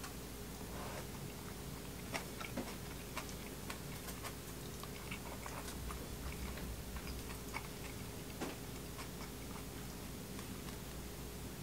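Eating sounds from a meal of spicy braised shrimp and fried rice: scattered small clicks and crunches of chewing, with chopsticks and a spoon tapping on the dishes, over a faint steady hum.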